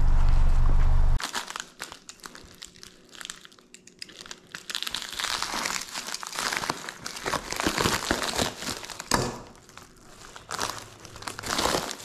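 A plastic bubble mailer being slit with a utility knife and pulled open by hand: irregular crinkling and crackling of the plastic, busiest in the second half. A loud steady low hum cuts off suddenly about a second in.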